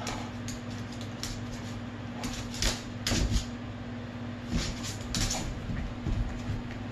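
Scattered knocks and scuffling thumps as a dog and a cat tussle on a wooden floor, heaviest in two clusters a couple of seconds in and about halfway through. A steady low hum runs underneath.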